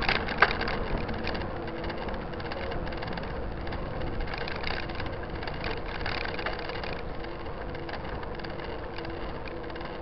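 Soul SL 129 mountain bike rolling along an asphalt road: steady tyre and wind noise with frequent small rattling clicks, and a sharper click just under half a second in.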